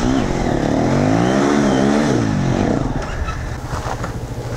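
Dirt bike engine revving, its pitch rising and falling in long swells, then dropping away a little under three seconds in.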